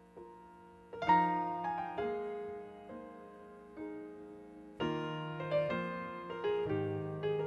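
Solo piano introduction to a slow ballad: chords struck and left to ring out, with louder chords about a second in and again near five seconds.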